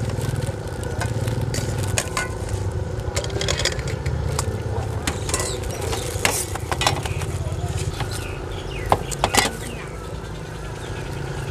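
A steady low motor hum runs throughout, with scattered sharp clicks and knocks over it, loudest in a short cluster near the end.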